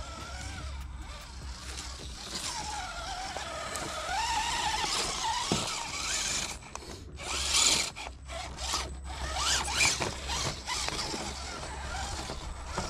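Electric motor and gears of an Element RC Enduro12 1/12-scale trail truck whining, rising and falling in pitch with the throttle as it crawls over rock, with several short scrabbling bursts of the tyres on wet rock in the second half.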